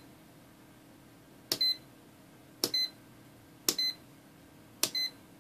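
Handheld digital multimeter's rotary range selector being stepped through its positions: four clicks, each followed by a short, high electronic beep, about one a second.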